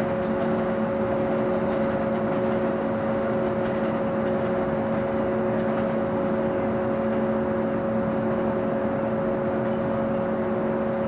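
JNR 475-series electric train standing at the platform, its onboard auxiliary machinery humming steadily: a few constant tones over an even rushing noise.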